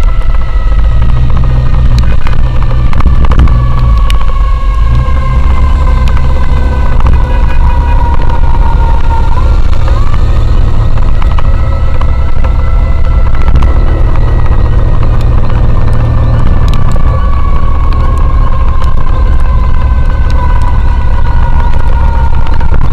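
Riding along in traffic on a motorcycle: loud, steady low road rumble with a pitched tone that slowly falls, jumps back up about halfway through, and slowly falls again.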